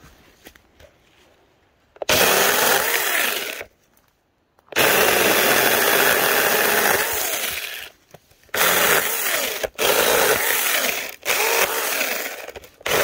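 Alreysue cordless battery-powered mini chainsaw cutting through a branch about 2 inches thick. It starts about two seconds in and runs in about five bursts of one to three seconds, with short stops between them.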